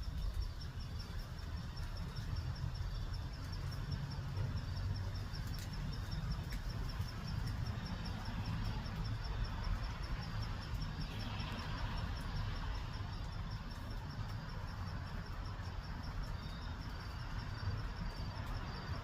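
Outdoor ambience: a steady low rumble, with a faint high-pitched chirp repeating evenly a few times a second, typical of an insect.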